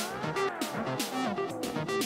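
Electronic music played live on hardware synthesizers and drum machines: a steady beat of short percussive hits under plucked-sounding synth notes, with a synth line gliding slowly down in pitch.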